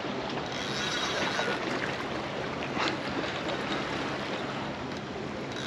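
Sea water washing and lapping against the rocks of a boulder breakwater, a steady hiss.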